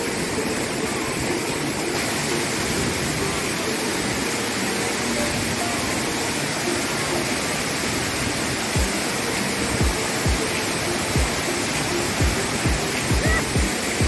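Dunn's River Falls cascade: white water rushing steadily down the rock face into a pool. From a little past halfway there is a series of short low thumps.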